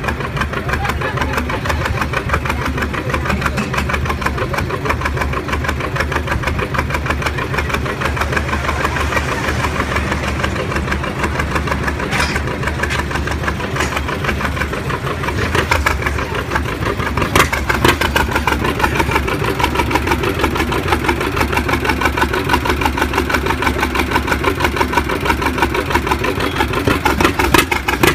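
John Deere 70 tractor's two-cylinder engine running with a rapid, even exhaust beat, then working harder and getting louder from about halfway through as it pulls the weight sled. A few sharp cracks sound over it.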